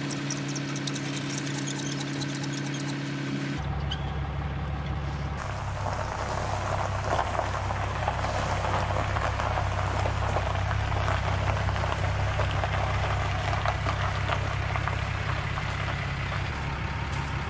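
A vehicle engine idling steadily, a low hum. About three and a half seconds in the sound shifts to a deeper rumble with a rougher hiss over it.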